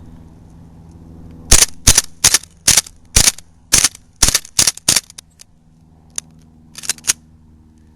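Gas blowback Baby Hi-Capa airsoft pistol firing a quick, uneven string of about nine sharp shots, then after a pause three more near the end. A steady low hum runs underneath.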